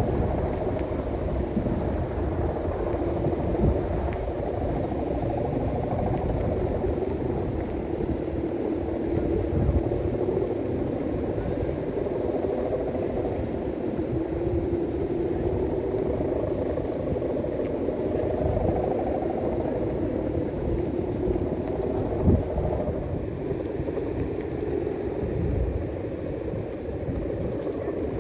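Strong wind buffeting the microphone in uneven gusts, over a steady wavering hum.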